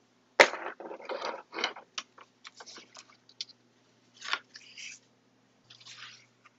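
Corrugated cardboard sheets being handled and slid over a mirror tile: irregular rustling and scraping, with a sharp knock about half a second in and louder scrapes a little after four seconds and near the end.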